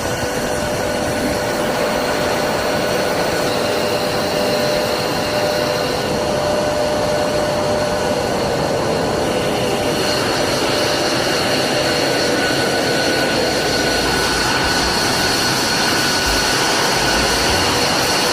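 Jet engine running steadily: a continuous rush of noise with high, steady whining tones over it, slowly growing a little louder.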